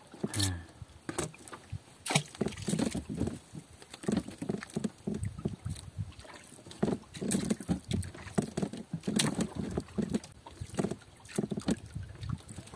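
Irregular knocks and rustles aboard a small boat as a hand line with a squid jig is worked.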